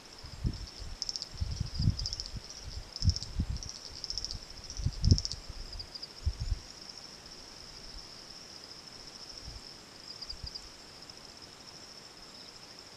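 Insects calling in a steady high-pitched, pulsing trill, with irregular low rumbles over the first half or so.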